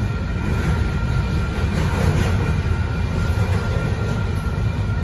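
Union Pacific intermodal freight train's double-stack container cars rolling past, a steady low rumble and clatter of wheels on rail, with a faint steady high tone above it.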